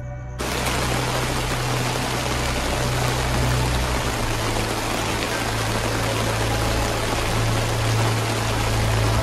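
Heavy rain falling on a tarp shelter, a dense steady hiss that starts suddenly about half a second in.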